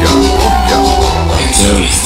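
Loud dance music played through a sound system, with held notes over a heavy, steady bass and an even beat.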